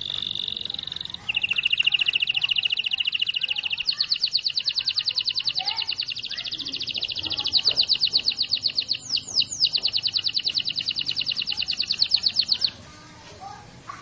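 Domestic canary singing a long rolling song: one unbroken run of fast trills that shifts in speed and pitch several times, with a few quick downward sweeps about two-thirds through, stopping about a second before the end.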